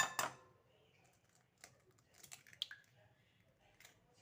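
A ringing clink of glass or crockery right at the start, then a few faint light taps and clicks of kitchenware being handled.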